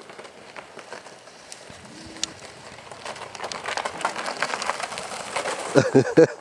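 Plastic sled sliding over a rough icy driveway, a rapid clatter of scrapes and knocks, some from a pole pushed against the ice, getting louder as it comes closer. Near the end comes a short, low, wavering hoot in about three pulses.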